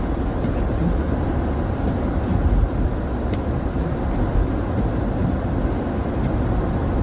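Steady low rumble of a car's engine and tyres heard from inside the cabin while driving slowly on a snowy, slippery road.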